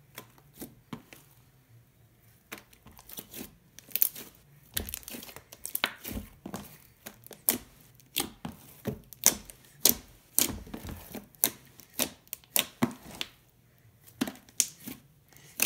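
A large batch of thick, glossy white borax-activated slime kneaded, pressed and stretched by hand in a plastic tub, giving many irregular sharp clicks and pops.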